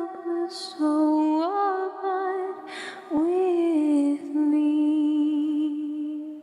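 A cappella voices holding long, slow notes of a hymn's closing phrase, with no instruments. The last note fades out at the end.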